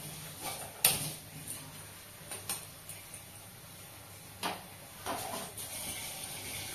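Aluminium cookware set down on a gas stove's metal grates: a few sharp metal knocks and clatters, the loudest about a second in and lighter ones later.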